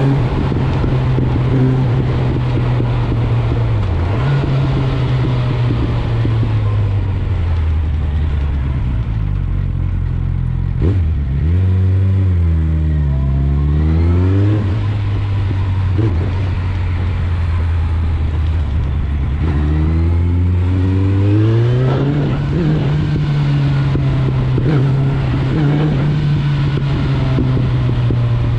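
Suzuki GSF 650 Bandit's inline-four engine running through an Akrapovic exhaust while riding. The engine note holds steady, drops as the bike slows about a third of the way in, revs up and falls back briefly near the middle, then rises as it accelerates and settles into a steady cruise.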